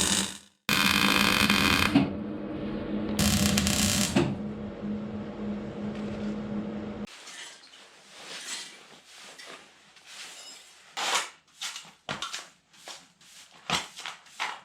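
Loud bursts of a metalworking power tool on sheet steel, over a steady electrical hum, starting and stopping several times and ending about seven seconds in. After that come quieter, scattered knocks and handling noises.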